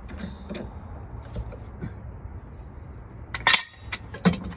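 Metal car-jacking gear clanking: a few faint knocks, then a quick cluster of sharp metallic clanks with a ringing tone about three and a half seconds in, and another near the end.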